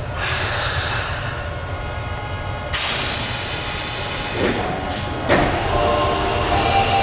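Osaka Subway 70 series train standing at the platform, hissing compressed air: a loud sudden hiss starts a little under three seconds in and lasts a second or two, and another starts about five seconds in.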